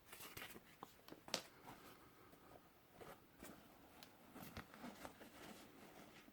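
Faint handling noises: light rustles and scattered clicks, with one sharper click about a second in.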